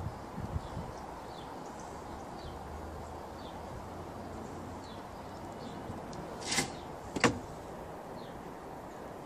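Steady outdoor background noise with faint, short high chirps recurring every second or so. About six and a half seconds in come two sharp knocks a little over half a second apart, the second one louder.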